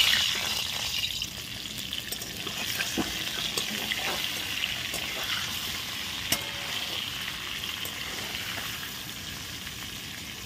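Whole peeled potatoes frying in hot mustard oil in a metal kadai. The sizzle starts suddenly as they go into the oil and eases off slowly, with a few sharp clicks against the pan as they are added and turned with a spatula.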